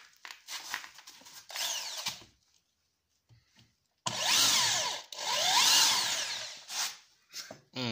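Dorkel DRD-500-2 corded impact drill running as it bores into a wooden block: a short run about a second and a half in, then two louder runs with a brief break between them. The motor pitch rises and falls during each run. The bit was never tightened in the chuck and slips, ending up stuck in the wood.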